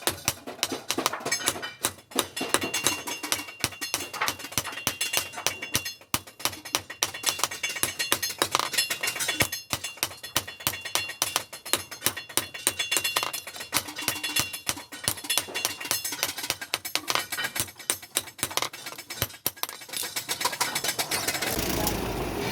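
Rapid, ringing hammer blows on hot steel over an anvil while an axe head is forged. Near the end the strikes stop and a steady hiss takes over.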